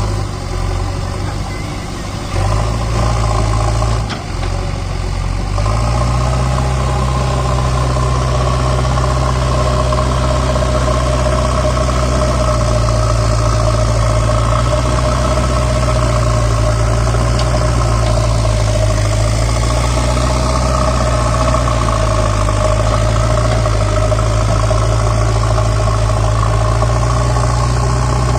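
Diesel engine of a JCB 3DX backhoe loader running, uneven for the first five seconds or so, then settling into a steady note.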